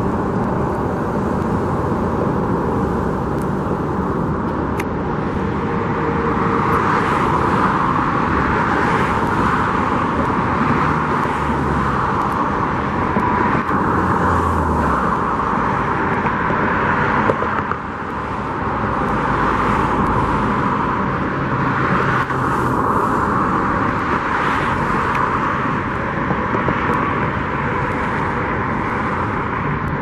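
Road traffic passing steadily, the tyre and engine noise of one car after another swelling and fading every couple of seconds, with a short knock about two thirds of the way through.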